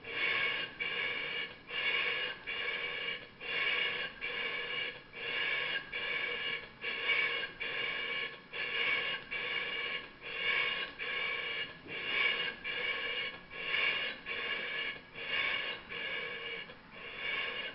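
Stuart 10V single-cylinder model steam engine running on compressed air, its exhaust giving a steady, even chuff a little over once a second.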